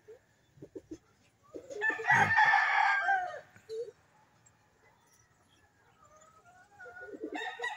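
A rooster crowing twice: one long crow about two seconds in, and another starting near the end.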